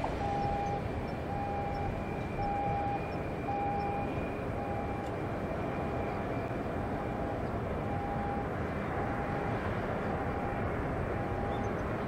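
Distant Boeing 787-8 with Rolls-Royce Trent 1000 engines on landing approach: a steady rushing jet drone with a faint high whine. A short beep repeats about every 0.7 seconds alongside it.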